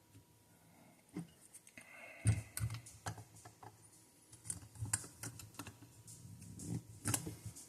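Irregular small clicks and taps of handling and pressing as a glass crystal is fitted back into a wristwatch case, with no pop of the crystal seating.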